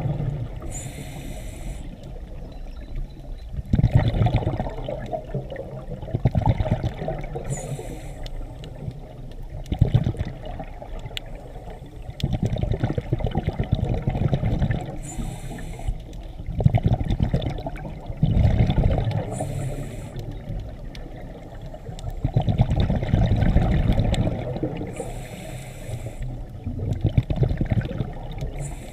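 Scuba diver breathing through a regulator underwater: a short hissing inhale through the demand valve, then a longer low burble of exhaled bubbles, repeating every few seconds.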